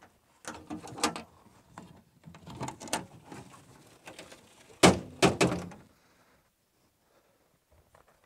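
Aluminium diamond-plate compartment lids on a fire truck body being handled: clicks, knocks and metal rattles, then a loud clank about five seconds in as the hose box lid is lifted, with two more knocks right after.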